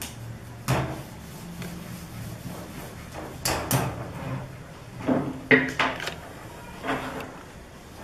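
A wooden rolling pin and a ball of dough knocking and rolling on a marble rolling board, as the dough is set down and rolled out. There are a handful of separate knocks and thuds, the loudest about five and a half seconds in.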